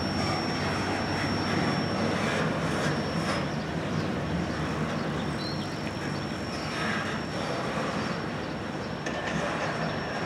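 Rumble and wheel noise of the last double-stack container well cars of a freight train rolling over the rails, slowly fading as the train moves away.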